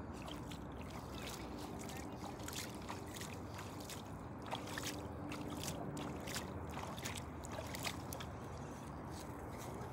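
Shallow river water flowing and lapping around a wading angler's legs, with scattered light clicks and ticks, a few louder ones in the second half.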